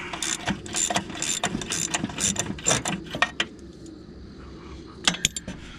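Hand ratchet wrench clicking as a bolt is backed out, about three or four clicks a second, stopping about three and a half seconds in, with a few more sharp clicks near the end.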